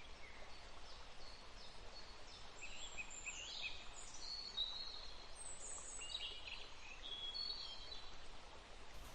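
Faint birdsong: several birds chirping and whistling in short, high, gliding notes over a soft steady background hiss.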